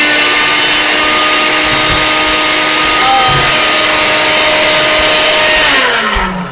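NutriBullet personal blender motor running at full speed with a steady, loud whine as it blends a thick, chunky mix, then winding down near the end as the cup is released.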